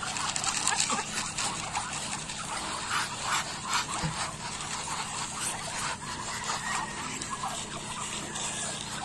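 A flock of Muscovy ducks pecking feed off dirt ground: quick, irregular clicks and rustles of bills and feet, busiest in the first few seconds, over a faint steady hum.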